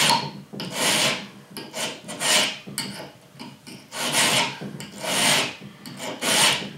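Hand file rasping across the edge of a steel reciprocating-saw blade held in a clamp, cutting the bevel of a knife blade. The strokes come about once a second, some stronger than others, and stop at the end.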